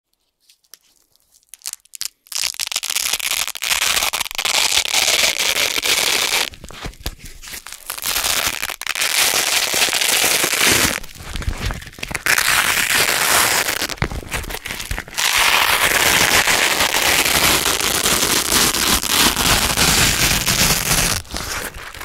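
A Velcro hook-and-loop fastener being slowly peeled apart close to the microphone: a loud, dense crackling rip. It starts about two seconds in and comes in about five long pulls of a few seconds each, with short pauses between them.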